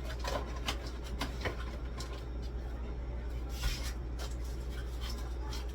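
Items and containers being handled and moved in a fridge freezer: scattered light knocks and clicks, with a brief rustle about three and a half seconds in, over a steady low hum.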